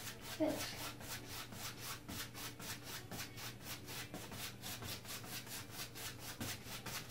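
Bristles of a 2-inch house-painting brush scrubbing paint onto a stretched canvas in quick crisscross strokes, a soft rhythmic swishing of about four strokes a second.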